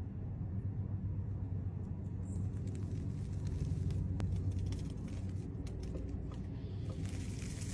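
A steady low rumble with a few faint clicks. About seven seconds in, purple floam (foam-bead slime) starts crackling and popping as fingers squeeze it.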